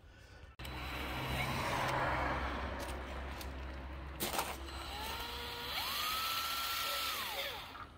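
Cordless drill spinning up about five seconds in with a rising whine, holding a steady high pitch for about a second and a half, then winding down. Before it there is a steady low rumble and hiss.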